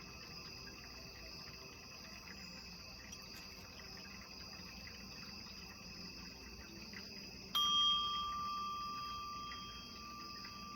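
Crickets chirping steadily in the background. About seven and a half seconds in, a sound-bath instrument is struck once and rings with a clear, high bell-like tone that fades slowly.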